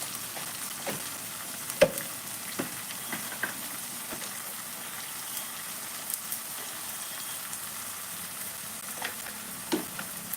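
Food sizzling as it fries in a pan, a steady hiss broken by a few short clicks and knocks of a utensil, the loudest about two seconds in.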